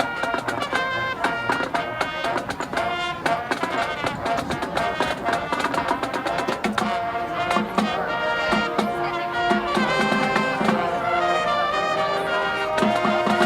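Small high school marching band playing a song: brass sustaining and changing notes over steady drumline percussion.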